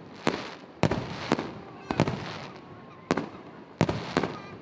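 Aerial firework shells bursting in quick, irregular succession: about seven sharp bangs, each fading away over a fraction of a second.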